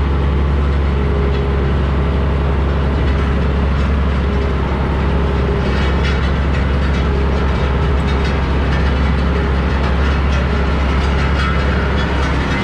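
Heavy truck engine running steadily under load while pulling a disc harrow through a field. From about halfway, metal rattling and clanking rides on top of the engine.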